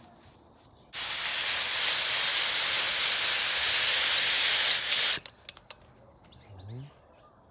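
Pneumatic paint spray gun spraying paint: a loud, steady hiss starts about a second in and cuts off sharply about four seconds later, followed by a few light clicks.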